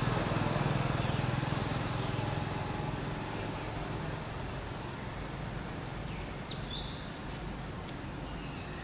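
Outdoor ambience: a low engine hum from a passing vehicle fades away over the first few seconds, leaving a steady background hiss with a brief high chirp about six and a half seconds in.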